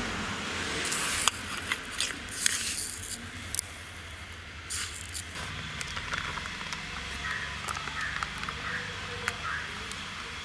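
Sugar sprinkled by hand from a small bowl onto wheat flour in a steel plate: short gritty hissing bursts with a few light clicks over the first few seconds, then quieter.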